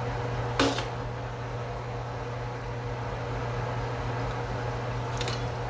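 Metal lathe running steadily, its spindle and chuck spinning with a constant hum while the tool takes a light 10-thou cut on the workpiece. A single sharp clack comes a little over half a second in, and a few faint ticks near the end.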